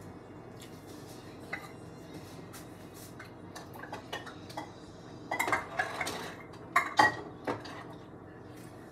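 Dishes and cutlery clinking and clattering on a kitchen counter: a few scattered clinks at first, then a busier run of clatter about five seconds in, with the loudest clinks about seven seconds in.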